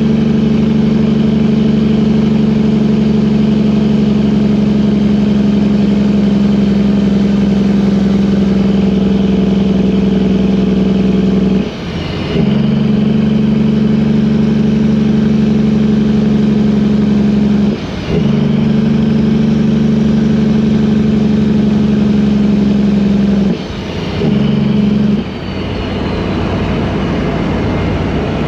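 Vehicle engine running at a steady speed, broken by brief dips about 12, 18 and 24 seconds in, with a rougher, different engine sound near the end.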